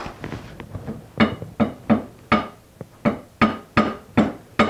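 A mallet tapping a metal plate assembly in a steady run of about nine light blows, close to three a second, starting about a second in. Each blow gives a short metallic ring as the parts are knocked into alignment.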